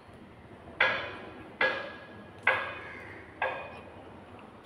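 Regular ringing metallic strikes, four in a row a little under a second apart, each ringing out briefly before the next.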